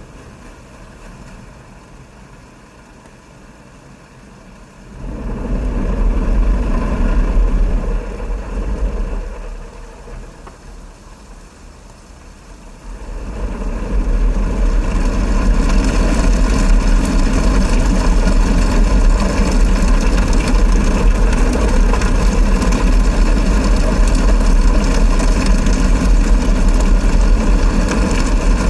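Automatic car wash heard from inside the car: a low machinery rumble comes in about five seconds in, eases off, then returns and holds steady about thirteen seconds in, with a brighter hiss joining a couple of seconds later.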